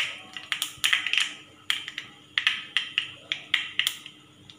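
Black mustard seeds popping in hot coconut oil in an aluminium kadai: irregular sharp pops, about four a second, over a light sizzle. This is the crackle of tempering, the sign that the oil is hot enough and the seeds are bursting open.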